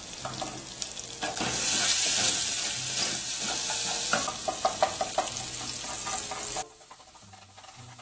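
Garlic sizzling as it fries in oil in a saucepan, stirred with a wooden spoon; the garlic is being browned before the beans go in. The sizzle swells about a second and a half in and drops away suddenly near the end.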